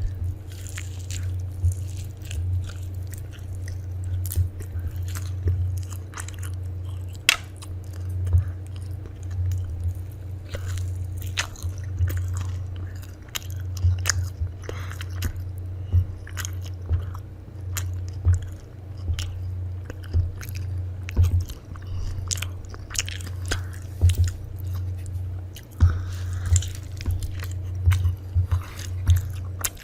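A person chewing and biting crunchy food, with irregular short crunches and crackles throughout, over a steady low hum.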